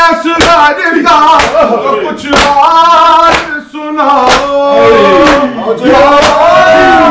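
Male voices chanting an Urdu noha lament in unison, with rhythmic chest-beating (matam): hand slaps on bare chests land together about once a second.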